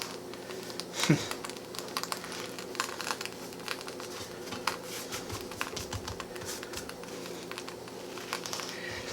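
Burritos frying in a skillet, crackling and popping in small irregular ticks over a steady low hum.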